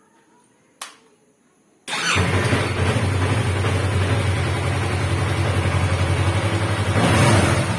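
A single click, then about two seconds in a Yamaha R3's parallel-twin engine starts and settles into a steady idle, getting a little louder near the end.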